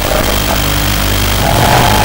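Small FPV drone's motors running steadily, a continuous mechanical hum with a brief louder whine near the end.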